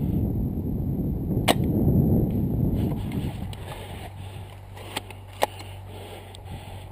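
Spring-powered Novritsch SSG10 A2 bolt-action airsoft sniper rifle firing once, a single sharp snap about a second and a half in, over low wind rumble on the microphone. Two quieter clicks come near the end.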